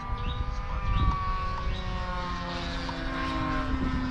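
Engine of a propeller-driven RC model airplane in flight: a steady buzzing tone whose pitch slowly falls as the plane passes.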